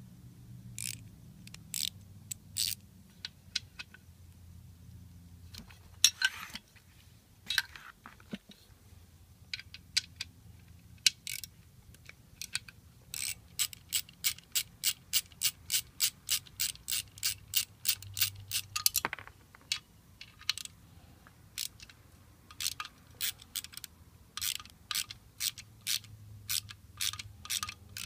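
Socket ratchet clicking as it is worked back and forth on the nuts of a car alternator's rear cover. The clicks come in short irregular runs, with a fast even run of about four a second through the middle and one louder knock about six seconds in.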